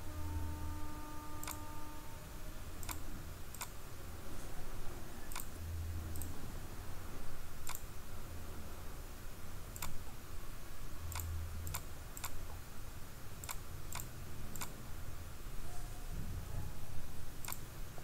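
Computer mouse clicking irregularly, about fifteen sharp clicks spread over the stretch, over a low steady background hum.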